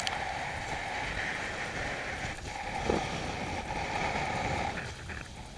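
Wind and water rushing past an AC45 catamaran sailing at speed: a steady rushing hiss over a low rumble, with one sharp knock about three seconds in. The rushing drops away near the end.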